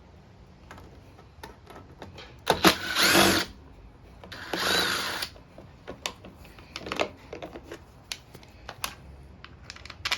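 Power drill-driver run in two short bursts of about a second each, backing out a screw that holds a cover on the mower engine. Light clicks and knocks of handling come in between.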